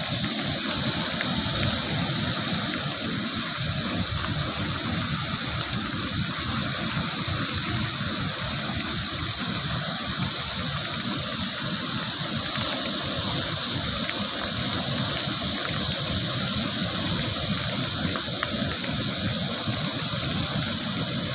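Storm-churned rough sea with wind: a steady rushing hiss that doesn't let up.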